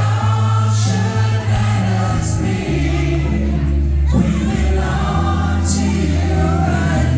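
Live pop music: male singers harmonising into microphones over amplified backing music with a steady bass line, changing notes every second or so.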